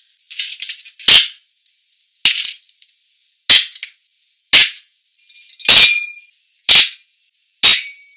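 Objects set down one after another on a wooden desk: about seven sharp knocks, roughly a second apart with silence between. One near the middle has a short ringing note like glass.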